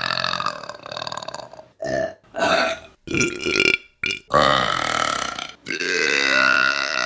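Women burping, one burp after another: a long, pitched burp fading out over the first second and a half, then several short burps, then two long, drawn-out burps.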